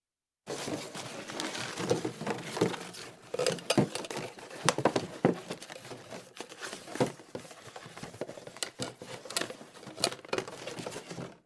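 Hands rummaging through a stationery drawer: small metal and plastic items clattering and rustling, with many sharp clicks and knocks. It starts about half a second in and stops abruptly just before the end.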